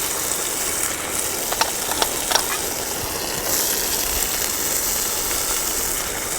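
Chicken karahi sizzling steadily in the pan, with three quick sharp clicks about a second and a half to two and a half seconds in.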